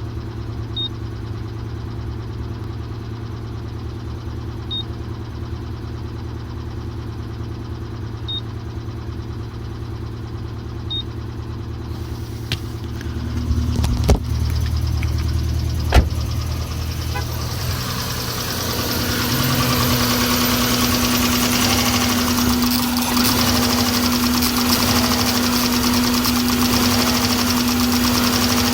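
2001 Subaru Impreza 2.2-litre flat-four engine running at idle while misfiring on cylinders 1 and 3. There are two sharp knocks about halfway through. The sound grows louder and brighter about two-thirds of the way in.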